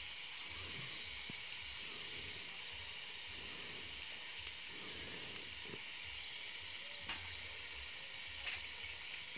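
Steady hiss over a low rumble, with a few light clicks and knocks scattered through.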